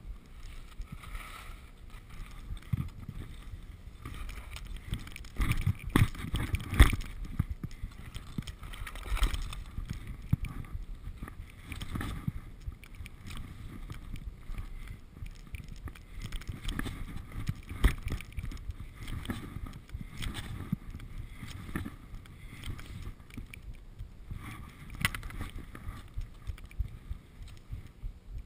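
Skis sliding and scraping over snow during a run through trees, with frequent short knocks and clatters, the loudest a cluster about six to seven seconds in.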